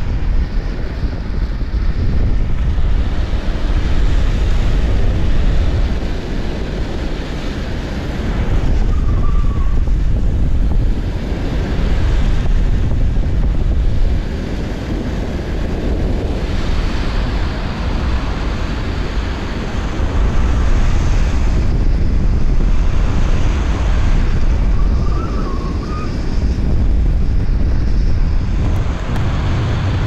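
Wind buffeting the microphone at high speed on a fast road descent, over the steady rumble of wheels on asphalt, swelling and easing every few seconds. A few short faint squeaks come through, about a third of the way in and twice near the end.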